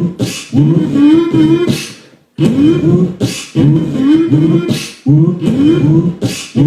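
Layered beatbox loop on a Boss RC-505 loop station: a hummed vocal bass line that glides up and down, with sharp hissing snare hits about every one and a half seconds, repeating. There is a brief break a little over two seconds in.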